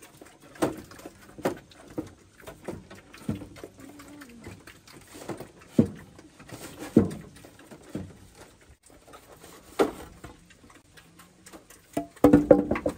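Irregular knocks and taps, scattered about a second apart, with a quick cluster of louder ones near the end.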